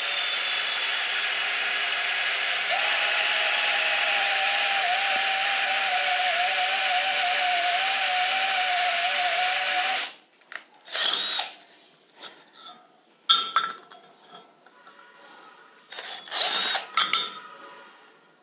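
24 V cordless drill-driver spinning a self-drilling screw against very hard steel plate: a steady motor whine with a wavering pitch that steps up slightly about three seconds in, for about ten seconds, then cuts off. The screw does not cut into the steel. A few short bursts and clicks follow near the end.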